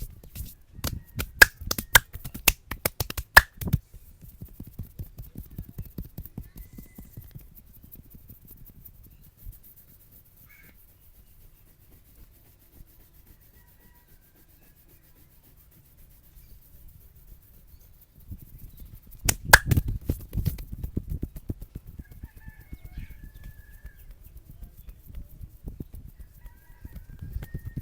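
Head massage by hand: a rapid series of sharp slaps and snaps in the first few seconds and again about twenty seconds in, with softer handling sounds between. Faint bird chirps can be heard underneath.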